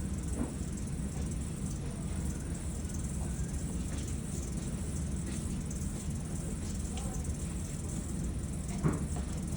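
Faint clicks and light knocks of puzzle box pieces being handled and fitted back together over a steady low background hum, with one sharper click near the end.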